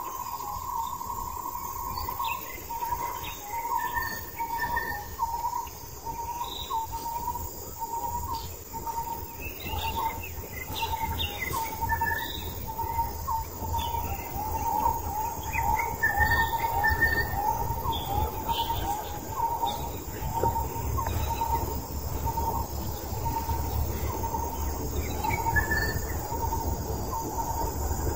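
Forest birdsong: scattered chirps over a steady run of short repeated call notes, about two a second, with a low rumble underneath.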